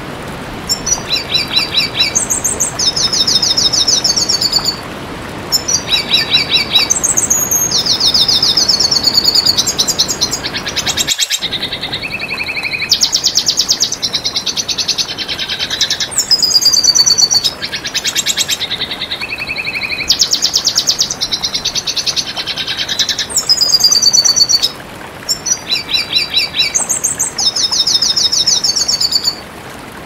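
Red siskin singing: long runs of rapid, high twittering trills and buzzy notes, broken by short pauses, over a steady rushing background noise.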